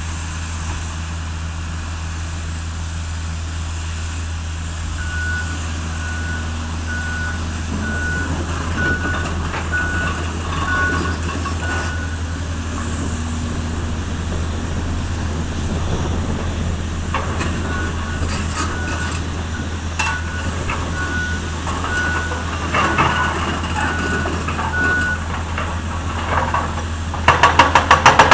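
Heavy-equipment diesel engine running steadily, with a reversing alarm beeping in two runs of about ten beeps each. Near the end a hydraulic breaker hammer starts up, loud and rapid.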